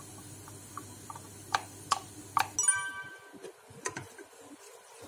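A few sharp clicks and taps of kitchen utensils on a saucepan, then a bell-like ringing clink a little under three seconds in. A low steady hum cuts off suddenly at the same moment.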